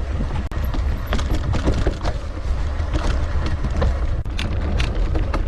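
Wind buffeting the microphone in a steady low rumble while a mountain bike rides a trail, with many irregular clicks and knocks from the bike rattling over the ground.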